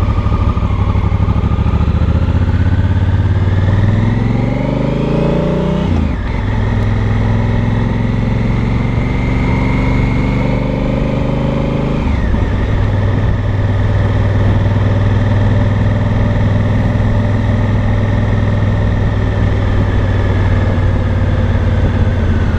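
Honda Africa Twin's 998 cc parallel-twin engine and exhaust at low road speed. It rises in pitch as it accelerates, drops sharply about six seconds in and again about twelve seconds in, then runs steadily.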